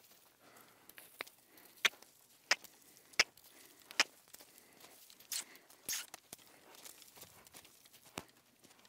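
A saddled horse on the move with a balloon tied to its saddle: a regular run of sharp clicks and creaks in time with its strides, then a couple of longer rustling scrapes a little past the middle.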